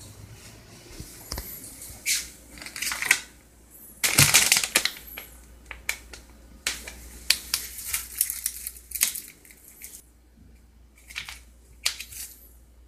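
Plastic food packaging crinkling and rustling in irregular bursts as it is handled, loudest about four seconds in.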